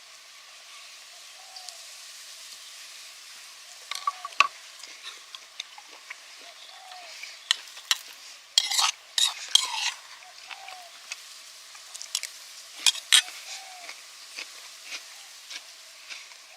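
Scattered sharp crackles and clicks over a steady hiss, bunched about four seconds in, in the middle and again near the end, typical of food frying or sizzling over a wood fire. A short rising call repeats faintly every few seconds underneath.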